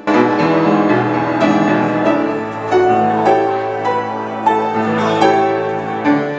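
Grand piano being played: a melody of separate notes over long held bass notes.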